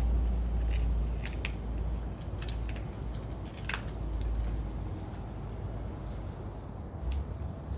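Thermoelastic caulking being cut and peeled away from a door frame: irregular small scratching and snipping clicks over a low steady rumble.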